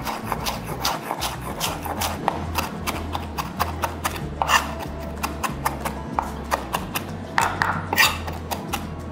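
Chef's knife rough-chopping fresh parsley on a wooden cutting board: quick, irregular knocks of the blade on the board, about four a second, with a couple of heavier strokes.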